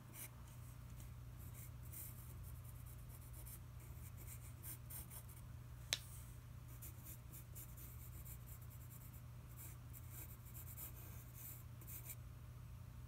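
Number two pencil scratching across paper in groups of short, faint sketching strokes, with one sharp click about six seconds in.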